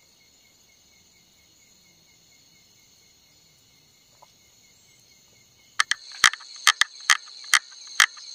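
Steady high chirring of night insects. About six seconds in, a quick, irregular run of sharp, loud clicks begins over a rising rustle.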